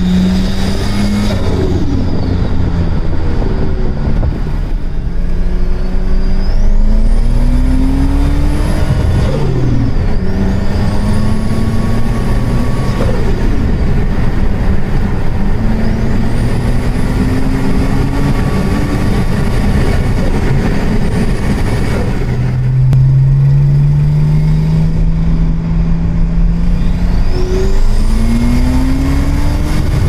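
Turbocharged BMW M20 inline-six with a Garrett GT3076 turbo, heard from inside the cabin, accelerating hard several times: the engine note climbs through each pull while a high turbo whistle rises and holds under boost, then cuts off abruptly as the throttle closes or the automatic gearbox shifts, and the pull starts again.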